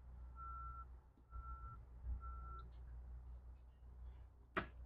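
Faint electronic beeping: a steady high-pitched tone pulsing about once a second, four beeps that stop about halfway through. A single short knock near the end.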